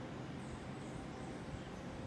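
Steady outdoor jungle ambience: an even low rumble of background noise with a few faint high chirps about half a second in.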